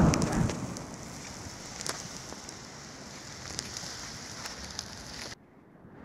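Steady hiss of a snowstorm, wind and blowing snow, with scattered faint ticks. A louder swell at the very start fades within about half a second. The sound cuts off abruptly about five seconds in.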